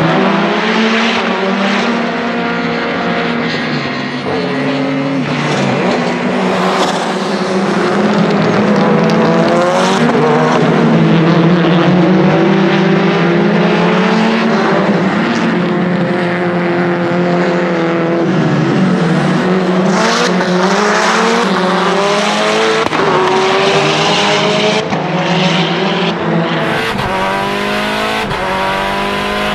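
Lancia Delta HF Integrale EVO Proto's 500 hp 2.0-litre turbocharged four-cylinder engine at racing speed, revs climbing and dropping again and again with fast sequential-gearbox shifts. Near the end it is heard from inside the car's cabin.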